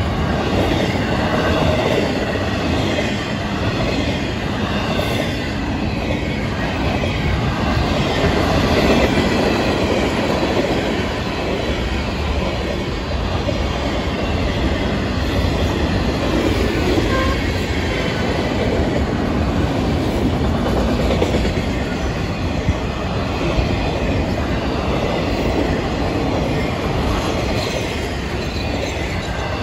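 Freight train cars rolling past close by: double-stack container cars, boxcars and autoracks. Their steel wheels make a steady rumble and clatter on the rails.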